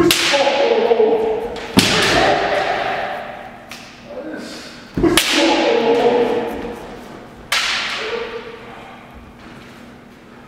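Kendo sparring: four sharp cracks of bamboo shinai striking armour, with a thud of the stamping foot on the wooden floor. Each crack comes with a drawn-out kiai shout, echoing in a large gym. The strikes fall at the start and about two, five and seven and a half seconds in.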